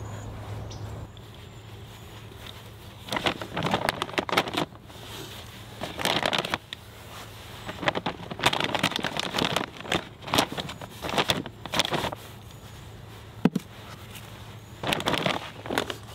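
Bursts of crinkling, crackly rustle from a plastic bag of granular fertilizer being handled, with a single sharp click about thirteen seconds in.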